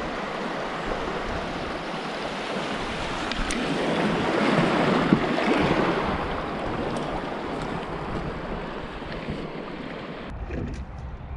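Shallow river rapids rushing around an inflatable canoe, a steady rush of water that grows louder midway through and then eases. Near the end it changes abruptly to a quieter low rumble of wind on the microphone.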